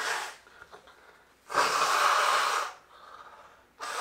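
A person blowing their nose hard into a tissue: several noisy blows, the longest lasting about a second in the middle, followed by a fainter one and another starting near the end.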